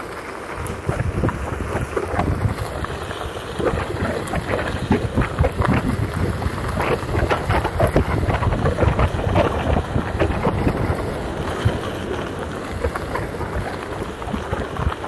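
Wind rushing over the microphone while a Onewheel's tyre rolls over a gravelly dirt fire road, with many small crunches and knocks from the gravel and a steady low rumble.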